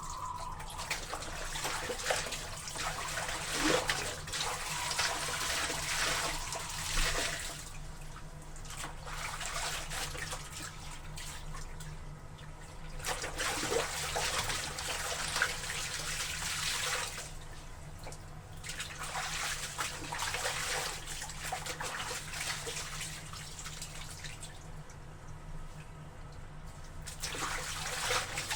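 Water sloshing and splashing as wet laundry is worked in a tub, in surges that swell and fade every few seconds, over a steady low hum.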